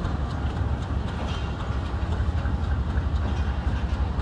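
Pakistan Railways RGE-20 diesel-electric locomotive running with a steady low rumble as a passenger train pulls slowly away, the coaches rolling over the rails.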